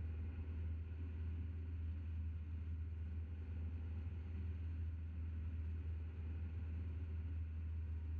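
Steady low rumble of a car driving along, engine and road noise with no change in pace.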